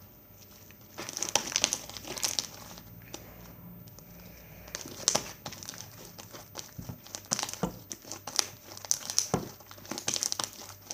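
White slime full of foam beads being kneaded and squeezed by hand, with irregular crackling and squishing as the beads pop and rub.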